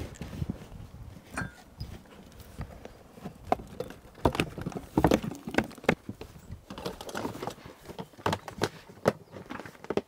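Irregular knocks, taps and rustling from camping gear being handled.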